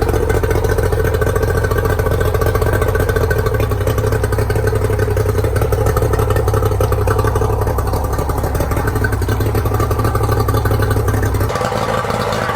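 Yamaha outboard motor running steadily on flushing muffs after a Seafoam shock treatment, burning off carbon build-up. Near the end the deep low hum drops away and the sound changes.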